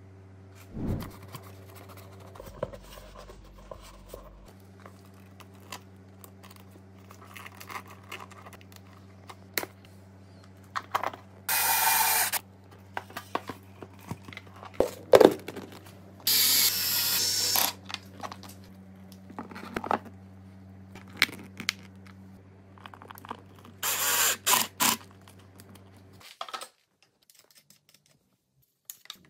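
Workshop handling of motorcycle airbox parts: clicks and scrapes of plastic and metal pieces, with three short bursts of a power drill-driver running. A steady low hum lies underneath and cuts off near the end.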